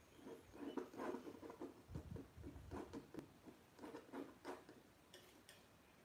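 Palette knife spreading and dabbing thick acrylic paint on a canvas: a run of short, soft scrapes and taps that die away about five seconds in.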